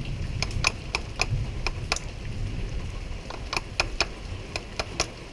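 Ratchet wrench clicking in two quick runs of about four or five clicks a second, with a pause between them, while it turns a fitting on the outboard's fuel injector.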